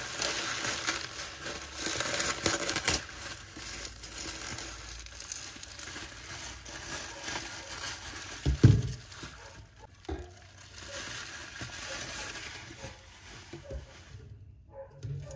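Bubble wrap crinkling and rustling as it is handled and pulled off a wire basket, with one dull thump about nine seconds in; the rustling dies away near the end.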